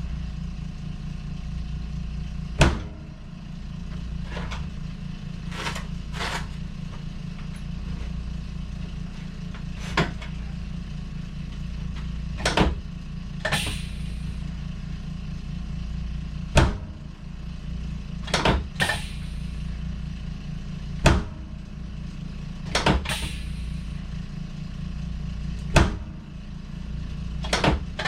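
A steady low motor hum with a fast, even pulse, broken by about a dozen sharp clicks or knocks at irregular intervals.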